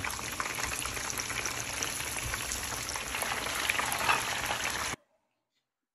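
Breaded chicken cutlets sizzling in hot oil in a shallow skillet, a steady crackling fry. The sound cuts off suddenly about five seconds in.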